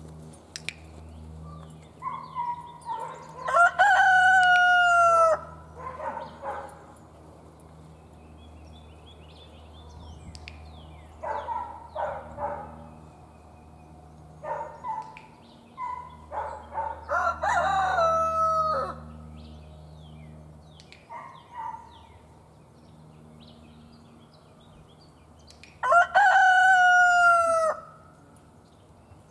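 Three rooster crows, each about two seconds long, the pitch held and then dropping at the end. Shorter, quieter chicken calls and clucks come in between.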